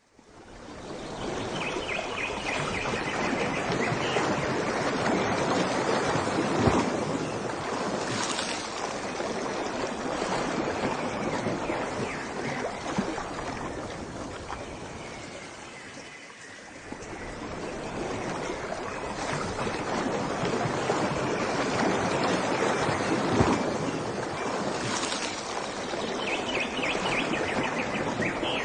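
Ocean waves washing ashore, fading in from silence, swelling twice with a lull in between.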